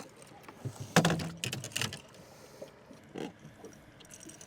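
A freshly landed catfish handled in the boat: a sharp knock about a second in as it thrashes, and a short, low, falling croaking grunt a little after three seconds.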